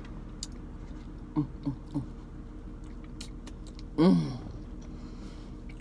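A person chewing red velvet cake with small wet mouth clicks, and short hummed "mm" sounds of enjoyment: three quick ones about a second and a half in and a louder, longer one about four seconds in.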